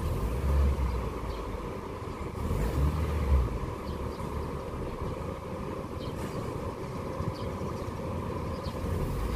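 Honda Fit driving, heard from inside the cabin: a steady low engine and road rumble that swells briefly twice, about half a second in and around three seconds in.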